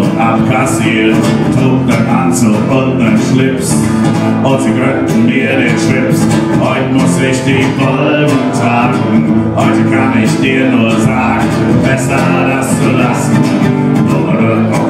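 Steel-string acoustic guitar strummed steadily in a live solo performance, with a man singing over it.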